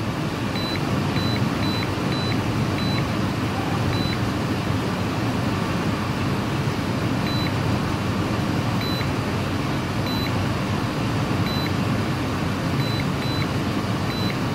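Short high-pitched keypad beeps from an Innova 5610 scan tool as its menu is scrolled one line at a time. There is a quick run of them in the first few seconds, then roughly one every second, over a steady low rumble.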